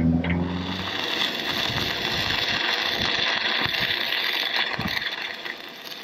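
Stick-welding arc crackling and hissing steadily as a 3.2 mm rod pad-welds over a rust hole in steel boat plate backed by a copper strap; the arc dies away near the end. A low hum sits under it at the start.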